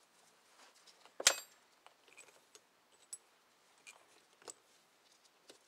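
Small metal pressure washer pump parts clinking as they are handled on a workbench: one sharp clink about a second in, then a few lighter ticks and taps.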